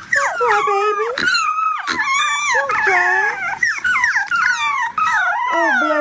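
Puppy whining and howling: a nearly unbroken run of high cries that glide up and down in pitch.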